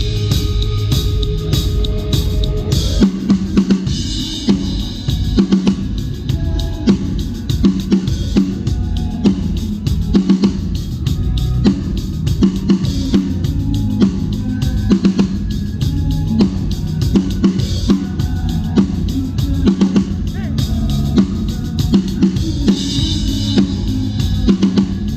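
Drum kit played through a song: regular bass drum and snare hits with cymbals, over pitched instruments of the band's music.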